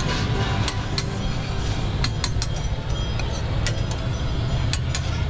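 Street-stall ambience: a steady low rumble of street traffic, with a scattering of sharp metallic clinks and taps from utensils on a steel griddle.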